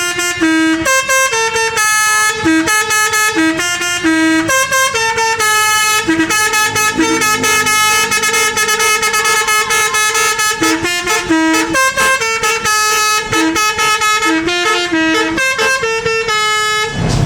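Basuri telolet bus horn playing a fast melody: a quick run of short, stepping horn notes that stops abruptly near the end.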